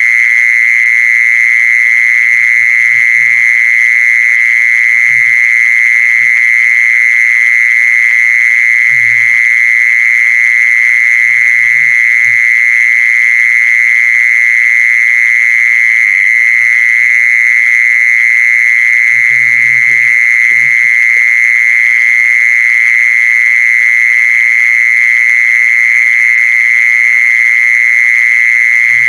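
A lure call for the female khmol: one continuous, loud, high-pitched steady tone that never breaks or changes pitch, with a few faint low knocks underneath.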